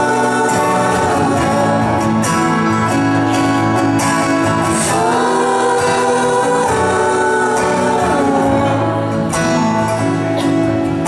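Live acoustic song: two acoustic guitars strummed steadily under long, held sung notes that glide between pitches.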